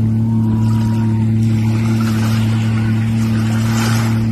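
Watercraft engine running at a steady speed close to the microphone, a constant deep hum. A hiss swells briefly near the end.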